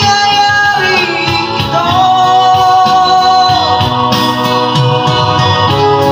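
A man singing a Filipino rock song into a handheld microphone, over backing music.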